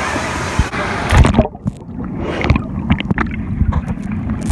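Steady din of the waterpark pool, then a splash about a second in as the camera plunges underwater: the sound turns muffled, with gurgling and knocks, until it comes back up near the end.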